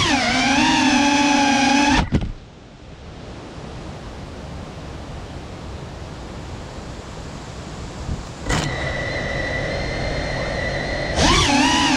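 FPV quadcopter's brushless motors whining, their pitch wobbling, until they cut off with a click about two seconds in. A quiet stretch of low hiss follows. Near nine seconds a steady high whine starts, and the motors spin up louder again near the end.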